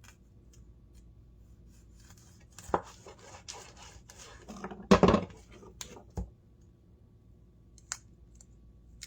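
Kitchen handling noises: scraping and rustling with several knocks, the loudest a thud about five seconds in, and a single click later.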